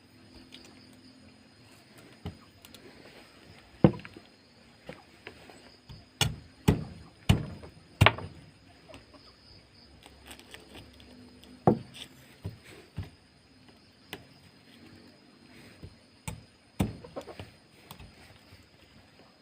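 About a dozen sharp knocks and thuds at irregular intervals, bunched together in the middle, the loudest about four seconds in.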